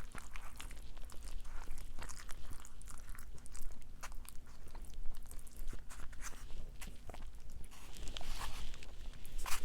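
Close-up eating sounds: crunching bites and chewing of crispy Popeyes fried chicken, a run of short crackles that grows busier near the end.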